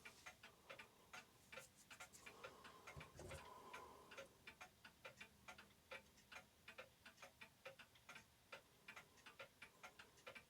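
Faint mechanical clock ticking, quick and steady, several ticks a second, as from one or more clocks running in a clock shop. A brief low rustle of handling about three seconds in.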